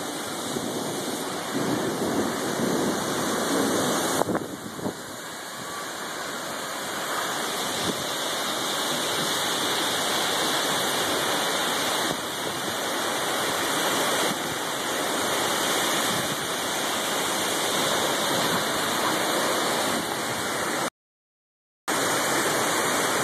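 Bow-echo thunderstorm winds, over 75 mph, with wind-driven rain, heard as a loud, steady rushing noise that swells and eases, as gusts buffet a phone's microphone. Near the end the sound cuts out completely for about a second.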